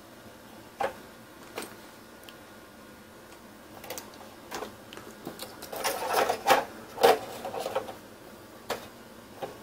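Plastic clicks and rattles from a Traxxas Stampede RC monster truck being handled: its body, wheels and suspension moved by hand. Scattered single clicks at first, then a busier run of rattling clicks about six to eight seconds in.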